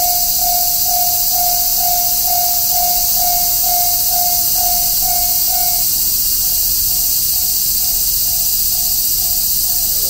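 Japanese railway level-crossing alarm sounding its electronic bell about twice a second, then dropping to a quieter level about six seconds in once the barriers are down. Behind it is a steady, shrill chorus of cicadas.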